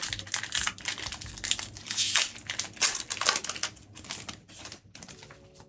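Foil wrapper of a Dragon Ball Super card game booster pack crinkling and tearing as it is opened, a run of crackles that dies down about five seconds in.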